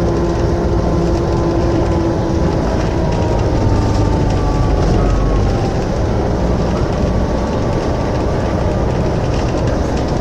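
Mercedes-Benz O405 N2Ü low-floor bus's rear-mounted diesel engine idling steadily, heard close to the back of the bus.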